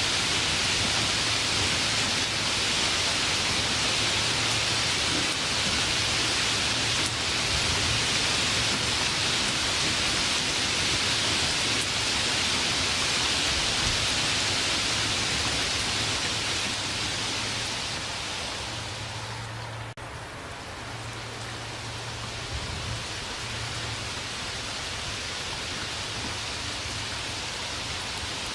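Steady rain, a dense even hiss. About two-thirds of the way through it dips briefly, then carries on a little softer.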